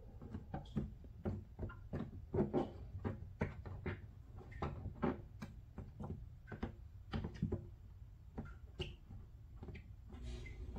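Irregular light knocks and clicks, about two or three a second, from fingers pressing and smoothing repair putty over a patched hole in a hollow plastic blow mold. A low steady hum runs underneath.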